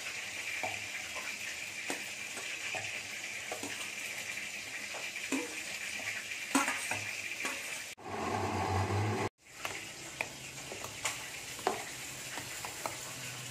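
A steel spoon scrapes and clinks against a steel bowl and a mixer-grinder jar as fried masala ingredients are spooned in, with scattered sharp clicks over a steady hiss. A little past the middle, a louder low hum runs for about a second.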